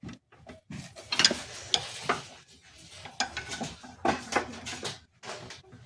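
Irregular metallic clunks and rattles from a Hyundai Tucson V6's suspension, the knocking noise traced to the sway bar link (stabilizer link).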